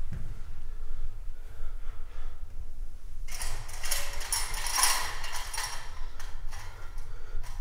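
A steady low rumbling drone, with a harsh scraping hiss coming in about three seconds in and lasting some four seconds.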